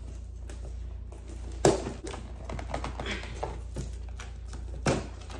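Car keys picking and tearing at a shipping package, with packaging rustling and many small clicks. Two louder knocks, about a second and a half in and near the end.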